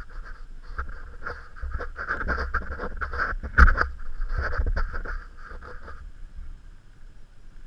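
Motocross boot buckles being fastened by gloved hands: a run of irregular plastic and metal clicks and scrapes, the loudest snap about three and a half seconds in, dying away after about six seconds.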